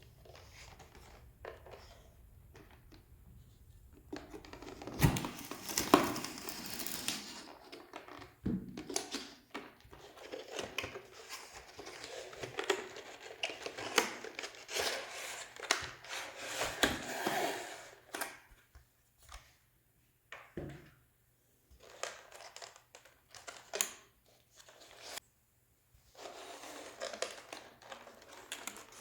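Plastic wrap being torn and crinkled off a sealed card-game box as it is opened, with cardboard being handled. Dense crackling and tearing for about a dozen seconds, then sparser rustles and taps, picking up again near the end.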